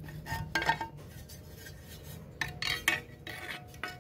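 Small steel parts of a circular saw's blade assembly being handled and fitted onto the blade spindle: light metal clinks and scraping. There are a few clinks with a short ring about half a second in, and a denser run of clinks and rubbing between two and a half and three and a half seconds in.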